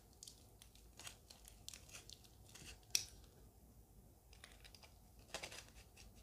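Utility knife blade scraping and slicing through sticky tape on a small wrapped plant pot: faint scratchy cuts, crinkling of the wrapping, and a sharp click about three seconds in.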